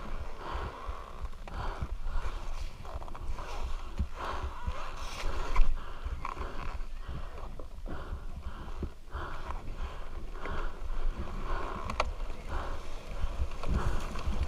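Two-stroke enduro dirt bike engine at low revs, picking up and dropping back in uneven bursts of throttle, with a rumble of wind and bumps on the helmet microphone. A sharp knock about five and a half seconds in.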